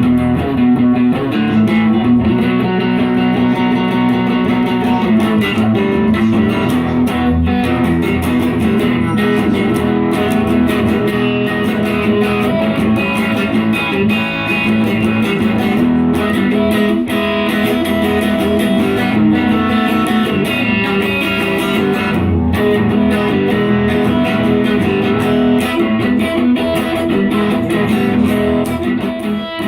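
Guitar music with plucked strings, playing continuously at an even level.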